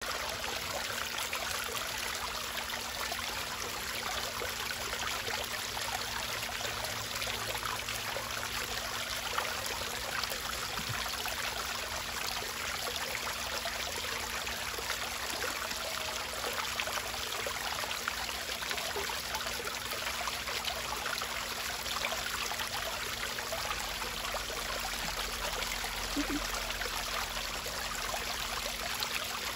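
Steady trickling and splashing of water pouring into a small fish pond, with a faint steady hum underneath.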